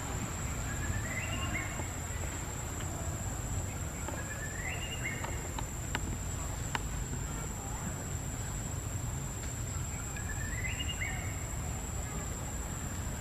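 Forest ambience dominated by an insect's steady, high-pitched drone. A short rising call sounds three times, about a second and a half in, around five seconds, and near eleven seconds, over a low rumble.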